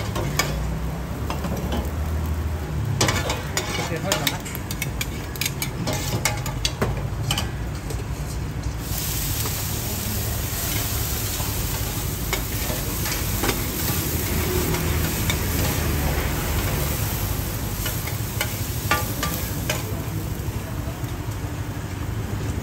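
Two metal spatulas scraping and clacking across a hot flat iron griddle, with frying sizzle. About nine seconds in, a loud steady sizzling hiss starts and carries on as the pan sends up steam, while the scraping goes on.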